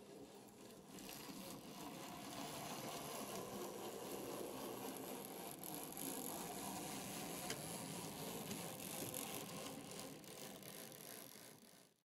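009 narrow-gauge model steam locomotive and coach running along the track: a steady rattle of small wheels on rail and the running gear, which grows about a second in and fades out near the end.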